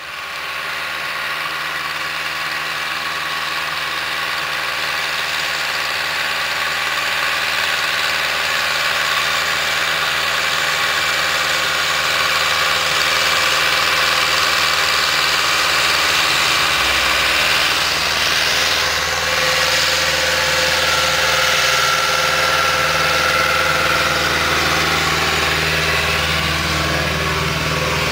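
Ursus C-360 tractor's diesel engine running steadily under heavy load, pulling two loaded trailers. It grows a little louder as the tractor approaches and passes close by.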